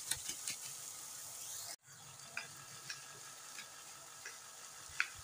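Carrot halwa frying in oil in a metal pot, a soft sizzle, while a slotted steel spoon stirs it with scattered clicks and scrapes against the pan. The sound cuts out for an instant about two seconds in, and the sizzle is fainter after it.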